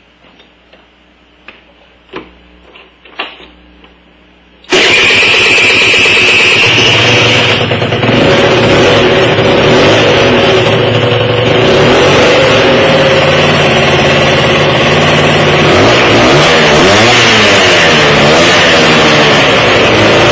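Kymco Super 9 scooter's small two-stroke engine, with a 70 cc kit and a freshly fitted Airsal cylinder head, starting up after a few clicks about five seconds in and then running loudly. Near the end it is revved up and down several times.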